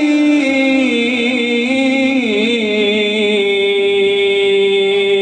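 A man's voice reciting the Quran in the melodic chanted style, holding one long drawn-out note with a slight waver in pitch about two seconds in.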